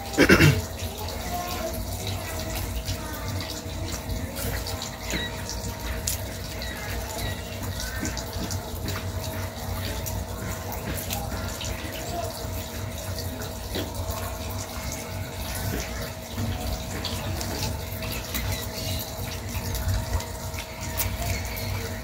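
White adhesive tape being pulled off its roll and wound around a machete handle: a loud rip just after the start, then faint crackles as more tape peels off. Underneath runs steady background noise with a low rumble and a constant hum.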